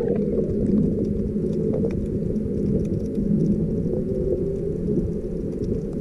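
Muffled, steady rumble of moving water heard through an action camera's waterproof housing held underwater, everything above a low pitch cut away, with a few faint ticks.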